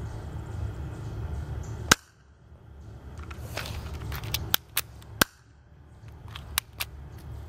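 Plastic Colt 25 spring-powered airsoft pistol firing: a sharp snap about two seconds in, the loudest sound, then a run of lighter clicks and a few more snaps as it is worked and fired again. A low rumble under the first two seconds stops at the first shot.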